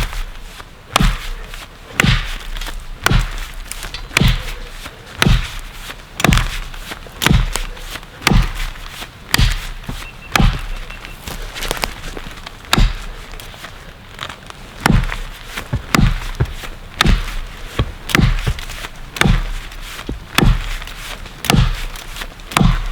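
Axe chopping a felling notch into a standing tree: sharp, steady strokes about one a second, alternating top and bottom cuts.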